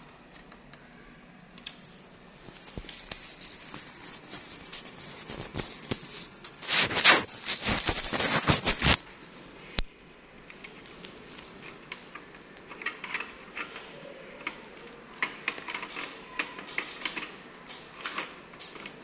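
Hand-handling noises from a copier's intermediate transfer belt unit: scattered small clicks, taps and scrapes of its plastic and sheet-metal parts, with a louder rustling scrape lasting about two seconds near the middle.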